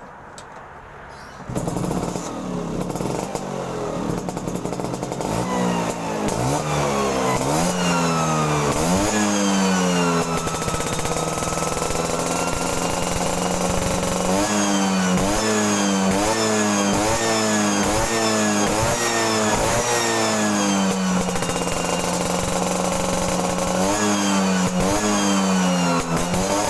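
Vespa scooter engine through an aftermarket 'daily tune-up' exhaust, starting about a second and a half in, then idling and being revved: slower rises and falls first, then a run of quick throttle blips.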